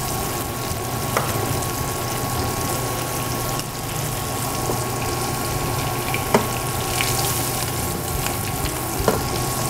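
Pork fillet medallions and fresh butter sizzling steadily in a frying pan, with a few light metal clicks against the pan as the hot butter is spooned over the meat.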